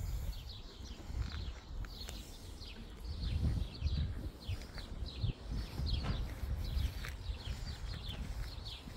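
Birds chirping all around: many short, high notes that slide downward, several a second, over a low rumble.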